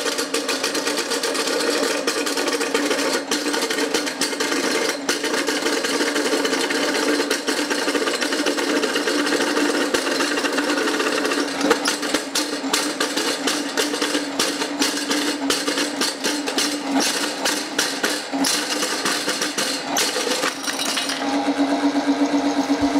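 RIDGID K-1500 sectional drain-cleaning machine running, its spinning cable driving a short-tooth cutter into a piece of timber: a steady motor hum under dense, rapid clattering of the cutter biting the wood. The clatter is heaviest in the second half and mostly stops near the end, leaving the machine running steadily.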